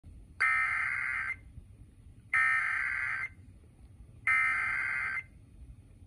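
Emergency Alert System SAME header: three bursts of digital data tones, each just under a second long, about two seconds apart, that open a tornado warning broadcast.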